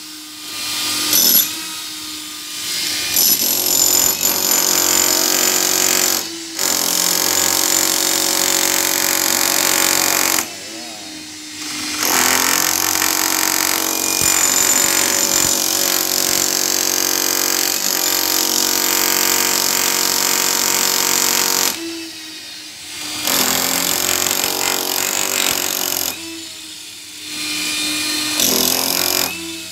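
Handheld electric breaker hammer chiselling into a concrete wall. It runs in long stretches with a steady motor whine and stops briefly several times.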